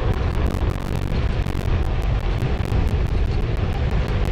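Wind rushing over the microphone of a moving e-bike, a steady noise with a heavy low rumble and no breaks.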